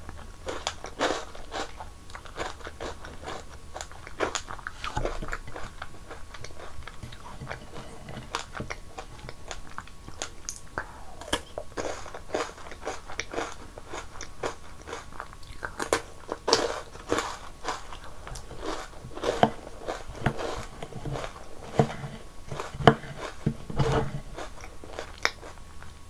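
Close-miked eating: crisp crunching bites and chewing of snacks from a strawberry shaved-ice bowl in milk, among them a rolled wafer stick and cereal puffs. The crunches come thick and irregular throughout and are loudest in the second half.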